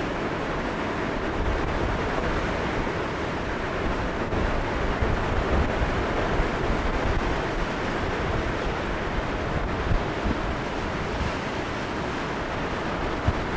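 Strong wind gusting over the microphone, a steady rushing noise that swells and eases, from the winds around a large tornado close by.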